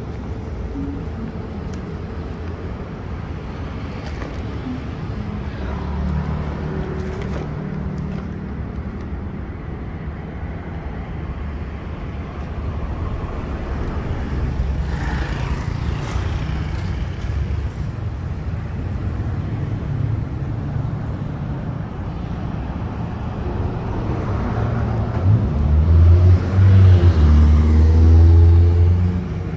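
Road traffic: vehicle engines running past on the road, a steady low drone that grows loudest near the end as a vehicle drives close by, its engine note shifting as it passes.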